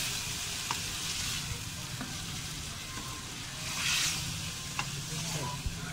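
Chicken pieces sizzling in hot ghee in a metal pot while being stirred with a spoon to brown them. The sizzle swells twice as the pieces are turned, with a few light clicks of the spoon against the pot.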